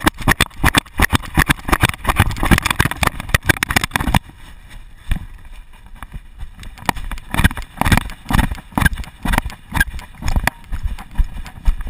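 A GoPro HD HERO2 rattling and clacking against its chest mount, worn on a running dog's back, because the mount's screw is loose. The knocks come thick and fast for about four seconds, then in looser clusters.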